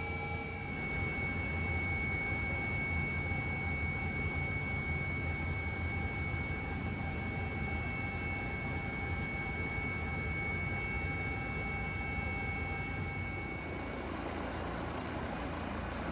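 Leonardo AW169 twin-turbine helicopter running: a steady high turbine whine over a low engine and rotor rumble. Near the end the whine drops away, leaving a rougher rushing noise.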